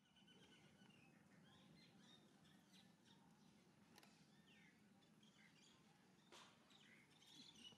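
Near silence: faint outdoor ambience with scattered short, high animal chirps, several of them falling in pitch.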